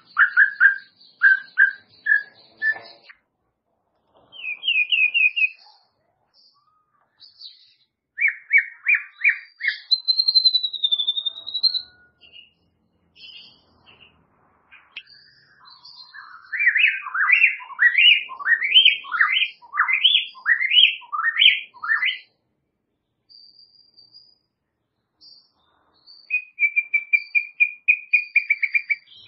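White-rumped shama (murai batu) singing in separate phrases with short pauses between them. It gives clear repeated notes, a single whistle that wavers in pitch, and around the middle a long run of quick sweeping notes. A fast string of repeated notes comes near the end.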